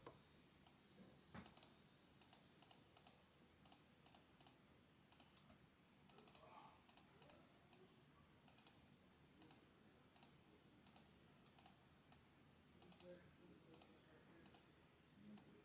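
Near silence, with faint, scattered clicks of a computer keyboard and mouse.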